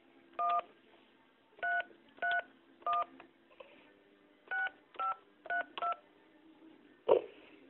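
Telephone keypad touch-tones (DTMF) heard over a phone line: eight short two-tone beeps, one, then three, then four, as a phone number is keyed in on the keypad. A short sharp click comes about seven seconds in.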